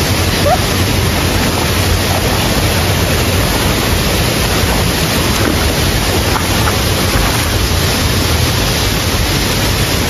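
Waterfall rushing: a loud, steady wash of falling water with no breaks.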